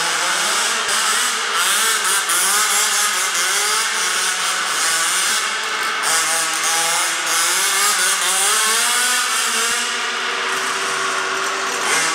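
Zenoah 29cc two-stroke engine with a Samba tuned exhaust pipe in an MCD W5 1/5-scale RC car, revving up and down over and over, its pitch rising and falling as the car is driven.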